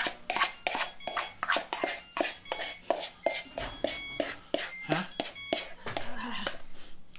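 Spatula scraping pancake batter out of a plastic mixing bowl in quick repeated strokes, about three a second, with short squeaks as it drags along the bowl's side.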